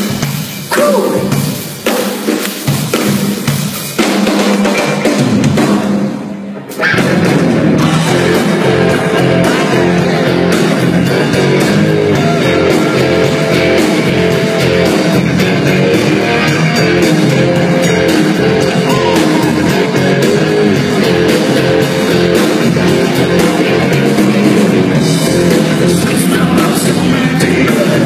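Live rock band: the drum kit plays in uneven, stop-start hits for the first several seconds, then after a short drop about seven seconds in the whole band comes in and plays on steadily and loud.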